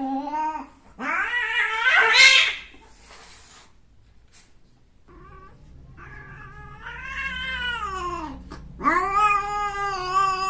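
Cats caterwauling while mating: long, drawn-out yowls. A harsh, loud screech comes about a second in. After a short lull, two long wavering yowls follow, and the first of them falls away in pitch before the next begins.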